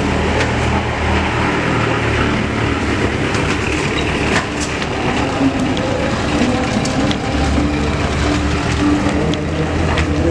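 A Mitsubishi L300 pickup's engine runs as it rolls slowly over a rough, gritty lot, with a dense rushing noise and scattered clicks and crunches. The low engine note grows stronger in the last few seconds.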